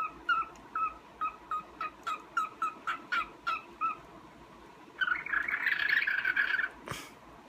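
Cockatiel giving a quick series of short, repeated chirps, about three a second, then after a pause a longer, harsher chattering call about five seconds in, followed by a single knock.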